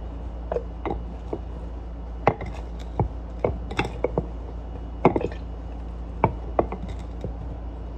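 Lemon muddler pounding lemon pieces in a cup to crush out the juice: a dozen or so irregular knocks over a steady low hum.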